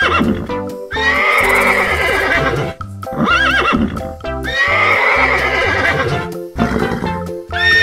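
Two long, wavering whinnies, a horse-neigh sound effect used as the zebra's call, over continuous cheerful background music. Between them come short bouncy up-and-down tones.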